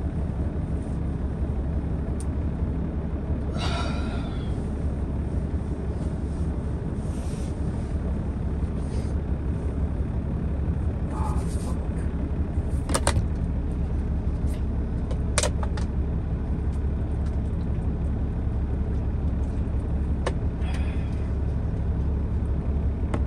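Steady low rumble of a Peterbilt semi truck's diesel idling, heard from inside the sleeper cab, with a few sharp clicks over it about halfway through.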